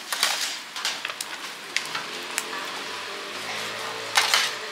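Egg and noodles sizzling in a hot wok, with a metal spatula clicking and scraping against the pan several times. The loudest strikes come near the end.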